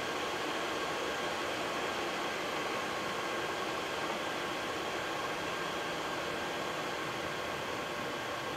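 Steady cockpit noise of a Boeing 737-800 on the ground with its engines at idle: an even hiss of air-conditioning and engine noise, with a faint steady whine.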